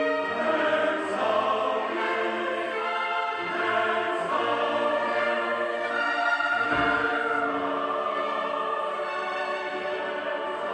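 Choral music: voices singing sustained, slowly moving notes, with a brief low thump about seven seconds in.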